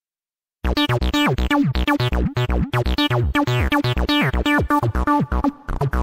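Arturia Acid V, a TB-303-style acid bass synth, playing a sequenced preset pattern: a fast run of short notes, many with falling glides and sweeps. It starts after a short silence, about half a second in.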